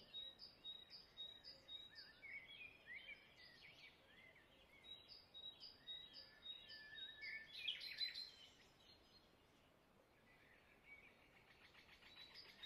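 Faint birdsong: quick runs of high chirps, about three a second, mixed with short falling whistled notes, in two bouts that die away a little past the middle.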